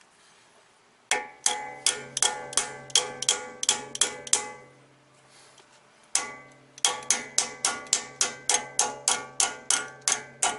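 Rapid, ringing metal-on-metal strikes from a ratchet hammering a new dust cap onto a VW Mk2 GTI rear wheel hub, about three or four blows a second. The blows stop for about a second and a half midway, then resume slightly faster. The cap is a tight fit and needs many blows to go on.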